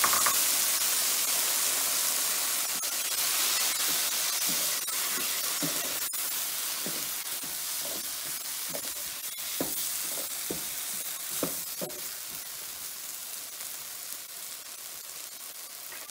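Vegetables and masala sizzling in a nonstick pan with freshly added tamarind water, the hiss slowly fading. From about four seconds in, a wooden spatula stirs and scrapes through the mix in a run of short strokes.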